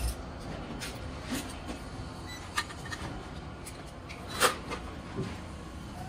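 Scattered clicks and knocks of a screwdriver and screws being worked into a ceiling fan's blade brackets during hand assembly, the sharpest knock about four and a half seconds in, over a steady workshop hum.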